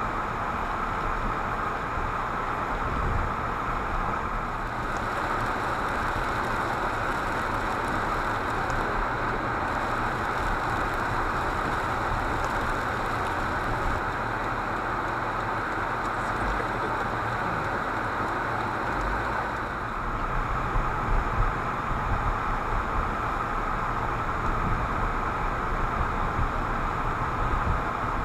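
Car driving, heard from inside the cabin: steady tyre and engine noise with a low rumble, which turns bumpier in the second half.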